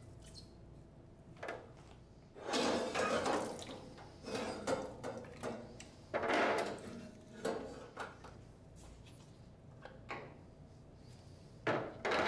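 The freezer door and internal parts of a Taylor 359 soft-serve machine being pulled off and out by hand: a string of irregular clunks, knocks and scraping noises over a low hum.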